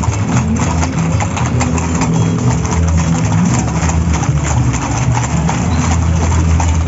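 Horses' hooves clip-clopping on a paved street, many short clicks, over a steady, loud low rumble.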